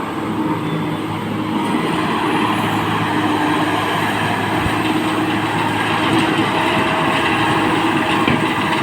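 Excavator's diesel engine running steadily under load, with a mechanical rattle over the engine note. It grows a little louder about a second and a half in.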